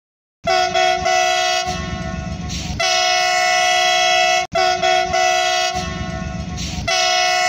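Train horn sounding a long, loud chord of several tones over a low rumble. The blast cuts off sharply a little past halfway and starts again in the same way, one recording played twice.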